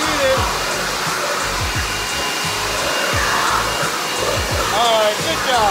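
Leaf blower running steadily at close range: a loud, even rush of air. Background music with a steady low beat plays underneath.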